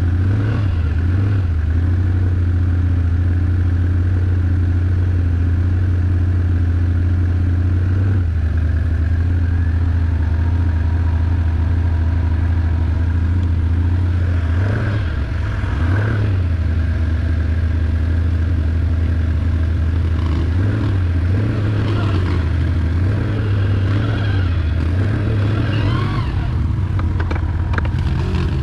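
Can-Am ATV engine running under way, a steady low drone that dips and rises in pitch several times in the second half as the throttle changes.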